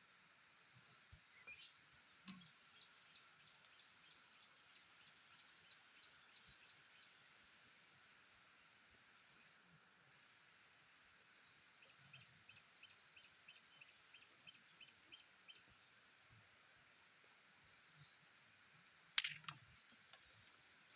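Insects shrilling in steady high tones under quiet rural background noise, with a run of short chirps, about four a second, midway through. A single sharp click stands out near the end.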